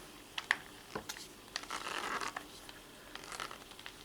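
Light handling noise: a few small clicks and knocks, with a brief rustle about two seconds in.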